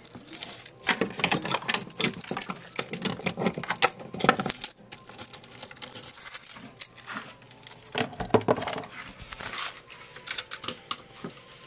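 Irregular clinking and rattling of small hard objects being handled, in dense bursts with a short break about halfway, easing off near the end.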